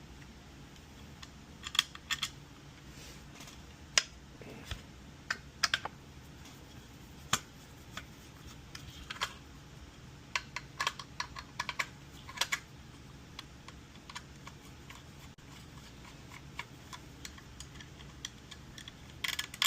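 Irregular light clicks and taps from hands and tools handling a treadmill control board, some in quick clusters, with a louder cluster near the end.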